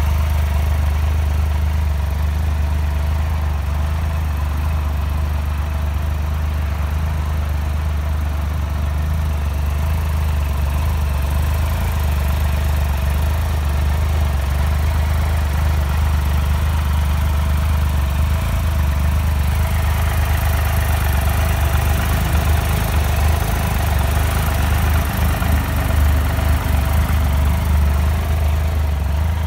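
Triumph Tiger Explorer XC's 1215 cc three-cylinder engine idling steadily through an aftermarket Arrow exhaust can.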